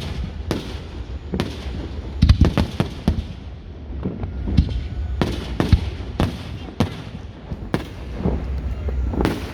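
Fireworks display: a dozen or more aerial shell bangs at irregular intervals, with a quick cluster of bursts about two seconds in.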